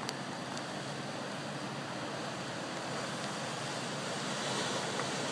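Ocean surf breaking and washing against a rocky shoreline: a steady rushing noise that swells a little near the end.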